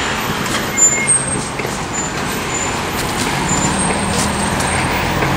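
Road traffic from a queue of cars waiting and creeping along: a steady engine hum under a broad rushing noise, with a few brief high squeaks about a second in.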